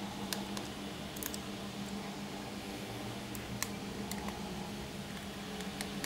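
A few scattered light clicks of a screwdriver working the screws in a laptop's plastic bottom case, over a steady low hum.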